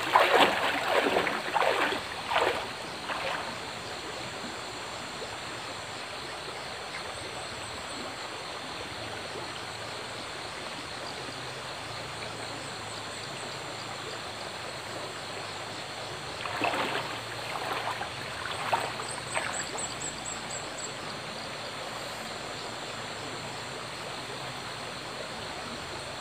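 Small forest stream flowing steadily, with water splashing and dripping in the first three seconds and again about seventeen to twenty seconds in as a gill net is lifted out of it.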